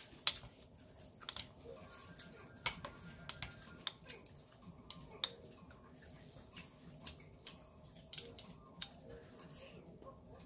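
Irregular sharp clicks of red chopsticks and a spoon knocking against a ceramic bowl as rice noodles in soup are stirred and lifted.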